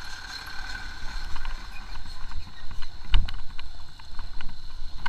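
Motorcycle riding over a rough, broken road: a steady low engine and road rumble with a thin steady whine over it, and a string of sharp knocks and rattles from the bumps, the loudest about three seconds in.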